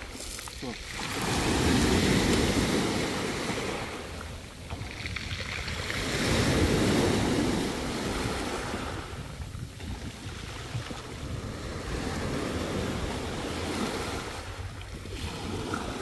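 Black Sea surf breaking and washing over a pebble beach, swelling loudest twice in the first seven seconds and then settling into a lower, steady wash.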